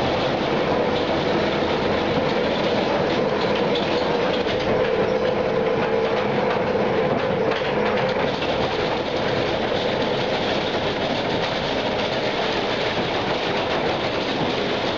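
Roadheader cutting into the heading face: a steady mechanical din with a constant clatter and a hum.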